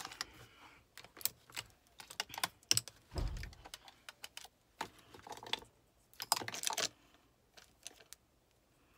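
Plastic makeup palettes and compacts clicking and clattering as they are handled and sorted through: a run of irregular small clicks, with a duller bump about three seconds in.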